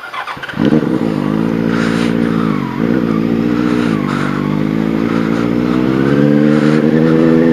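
Benelli 600i's inline four-cylinder engine running through a loud aftermarket Ixil exhaust while the bike is ridden. The engine note comes in about half a second in, dips briefly about a third of the way through, then climbs slowly.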